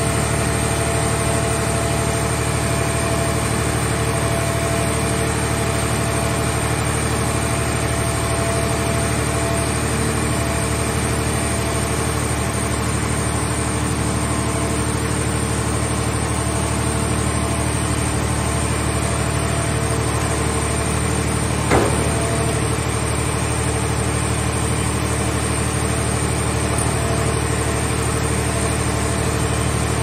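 Steady drone of hydraulic machinery running, the power unit of a scrap grab crane lifting a car shell into a car-body baler, with a few constant hum tones. A single sharp knock about two-thirds of the way through.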